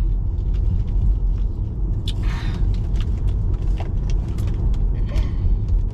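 Steady low road rumble inside a moving car's cabin. Scattered small clicks and two short bursts of rustling, about two seconds in and again near five seconds, from snack packaging being handled.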